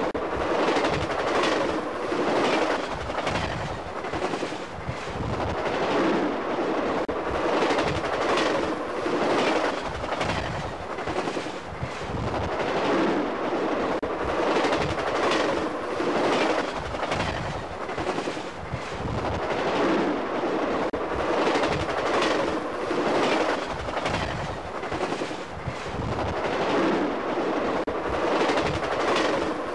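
Amtrak passenger cars passing close by at speed: steel wheels clattering over rail joints in a quick clickety-clack, with a steady rushing roar that swells and dips regularly as each car goes by.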